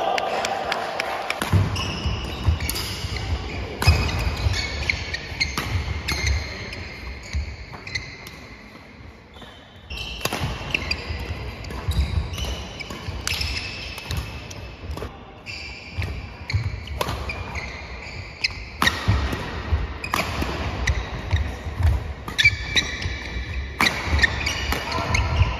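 Badminton doubles play on a wooden sports-hall floor: sharp racket strikes on the shuttlecock, trainers squeaking in short high squeals and feet thudding. A quieter lull comes about a third of the way through.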